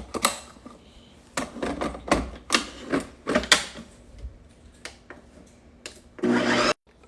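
Plastic clicks and knocks from handling and locking a Ninja Creami pint and bowl into the machine, then a loud, steady machine hum of about half a second near the end that cuts off suddenly.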